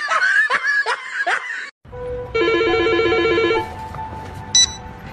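Young men's voices shouting and laughing for the first couple of seconds, then a mobile phone's trilling electronic ring: one warbling burst about a second long, followed by a quieter steady tone.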